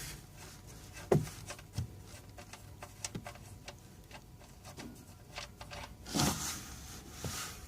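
Faint scattered clicks and rubbing as a truck's oil pan drain plug is unscrewed by hand, with a brief louder scrape or rustle about six seconds in.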